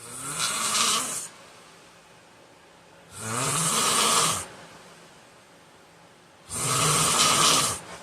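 A sleeping man snoring loudly: three snores, each a little over a second long, about three seconds apart.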